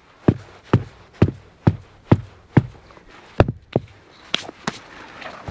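Footsteps at a steady walking pace, about two a second, on frozen, snow-dusted forest ground, with a few lighter knocks and rustling near the end.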